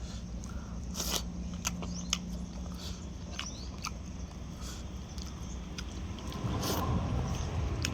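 Close-up chewing and biting while eating chicken, with scattered wet mouth clicks and smacks over a steady low hum.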